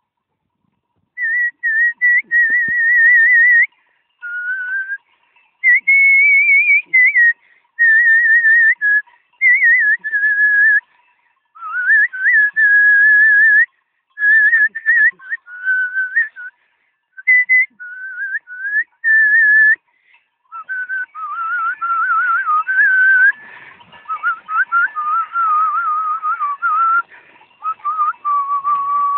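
A man whistling a tune in short melodic phrases with quick trills, starting about a second in. In the last third a hiss runs under the whistling.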